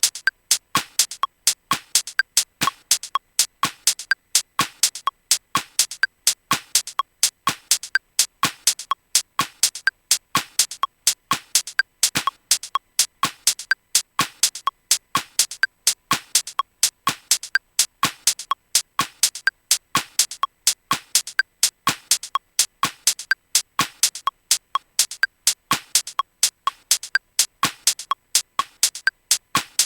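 Electronic dub-techno groove playing from Native Instruments Maschine: crisp, clicky drum-machine hits in a steady, fast repeating pattern, with little bass.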